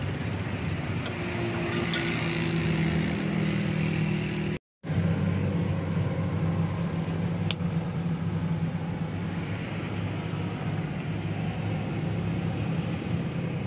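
Steady low mechanical hum and rumble, with a few light clicks. It cuts out briefly about a third of the way through.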